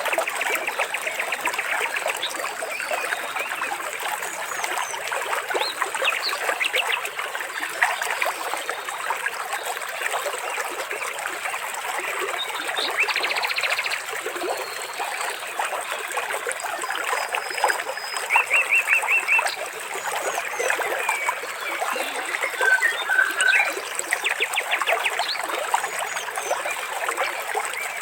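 Water trickling and splashing in a continuous stream, with birds calling over it: short rapid trills every few seconds and scattered high chirps.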